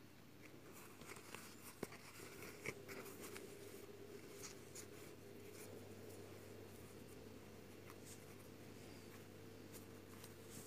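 Faint scratching and rustling of cotton yarn being worked with a crochet hook through a crocheted shoe, with a few soft clicks, over a faint steady hum.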